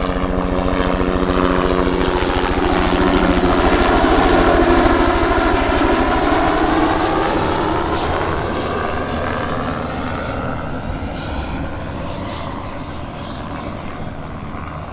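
Herbicide-spraying helicopter flying low past, its rotor beating fast and evenly. It grows loudest about four to five seconds in, its engine pitch falling as it goes by, then fades away.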